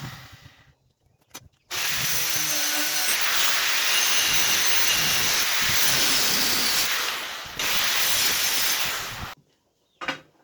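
Small angle grinder cutting a piece of steel plough disc. After a brief pause it runs steadily for about seven and a half seconds and stops abruptly near the end, leaving a few faint clicks.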